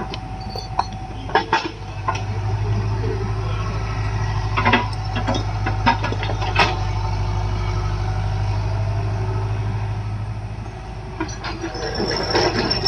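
Diesel engine of a JCB 3DX backhoe loader running, its drone rising about two seconds in and easing off again near the end, as under working load, with occasional clanks and knocks.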